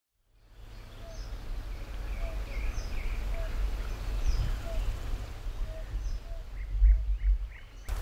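Birds calling in the countryside: a short low note about once a second and higher chirps now and then, over a steady low rumble. It fades in just after the start.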